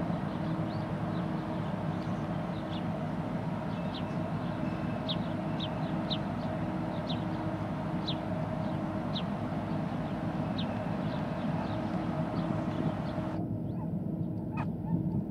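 Steady low drone with a constant hum from the engines of a passing container ship, with short high bird chirps repeating over it about once a second.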